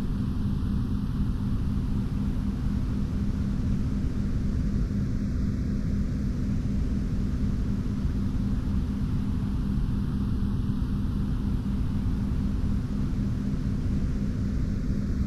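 Steady, unchanging low mechanical hum with a rumbling noise underneath.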